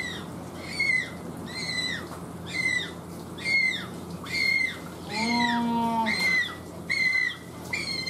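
A just-fledged Humboldt penguin chick calling over and over, a thin, high peep that slides downward, about one a second. It is still a chick's voice, not yet the deep call of an adult.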